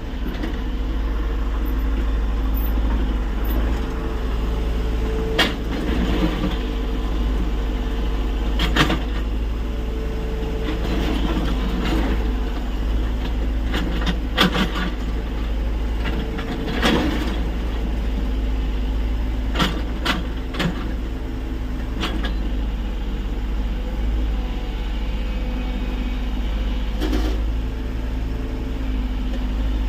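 Tata Hitachi EX 70 excavator's diesel engine running steadily as it digs, with sharp clanks every few seconds from the working bucket and arm.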